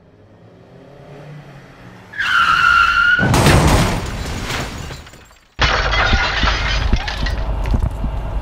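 Car crash sound effect: a rising engine sound, then a tyre screech about two seconds in, followed by a loud crash that dies away. About five and a half seconds in, a loud, noisy sound starts abruptly.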